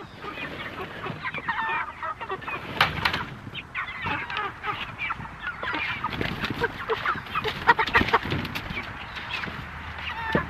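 A flock of white meat chickens (broilers) in a movable pen clucking and chirping, with a few sharp knocks and clatters, the loudest about three seconds in and again around eight seconds in.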